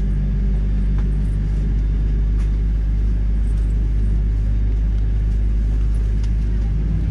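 Steady low rumble and hum of a Boeing 777-300ER's GE90 jet engines, heard inside the economy cabin.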